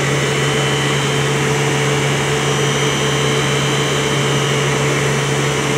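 Electric pump set running, heard close to its shaft coupling: a loud, steady low drone with a constant higher tone and an even hiss. The uploader reports that the coupling is not air-tight.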